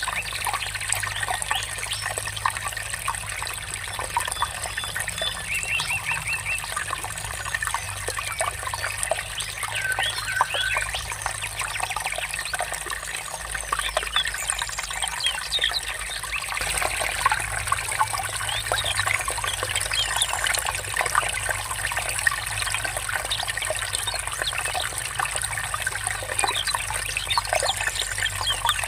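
Water trickling and babbling steadily over stones, with small birds giving short chirps now and then.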